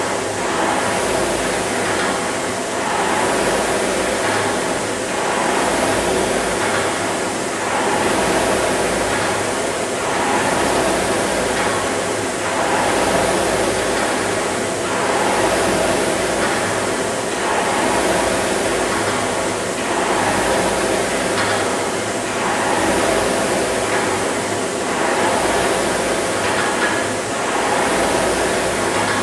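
Air-flywheel indoor rowing machine whooshing with each stroke. The rush swells on every drive and fades on the recovery, in a steady rhythm of about one stroke every two and a half seconds.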